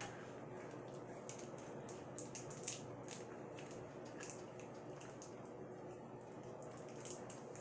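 Faint, irregular crinkling and clicking of a candy wrapper being handled and opened by hand.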